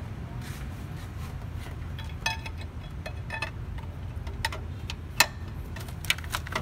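Short, sharp metallic clicks and clinks, about five of them spread out, the loudest about five seconds in, from hand work on the exposed camshafts and timing chain of a BMW M62 V8 while its cam timing is checked. A steady low hum runs underneath.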